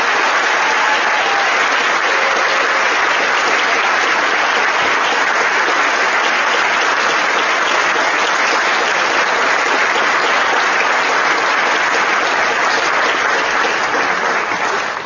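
A large audience applauding steadily, a dense sustained clapping for a prize winner, fading away just after the end.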